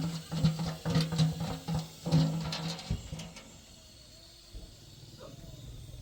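Background music with a steady low drone and regular percussive clicks that stops about three seconds in, leaving a faint low rumble.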